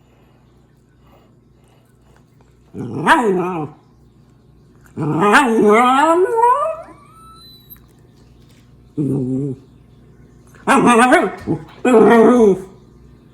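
Shiba Inu giving five pitched vocal calls. A short call comes about three seconds in, a longer drawn-out call falls in pitch a couple of seconds later, another short one follows, and two more come close together near the end.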